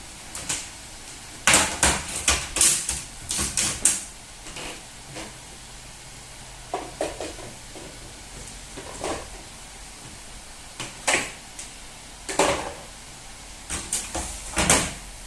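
Feeding-bottle equipment being handled and set down: a quick run of knocks and clatters a second or so in, then scattered single knocks.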